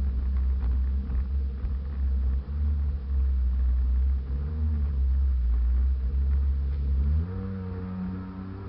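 Sea-Doo jet ski engine running under way, its pitch rising and falling with the throttle and climbing a little over a second from the end, over a heavy low rumble.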